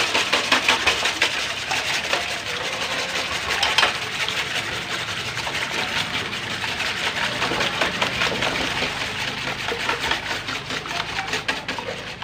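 Wire whisk beating raw eggs in a stainless steel bowl: a fast, steady clatter of the wires against the metal and a sloshing of the eggs.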